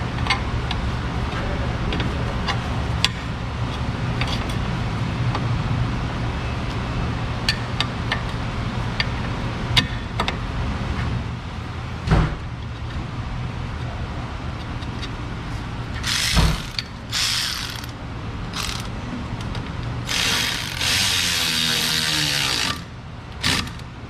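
Hand tools working suspension bolts: a ratchet clicking, with scattered metallic clicks and taps over a steady low hum. Near the end come two bursts of hissing noise, the second about two and a half seconds long.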